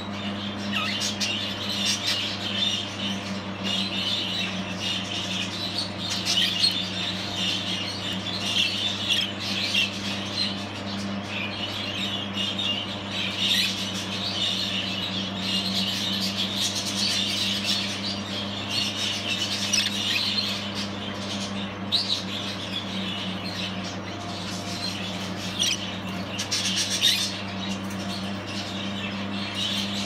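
Budgerigars chattering and warbling continuously, with a few louder, sharper calls standing out around the middle and near the end, over a low steady hum.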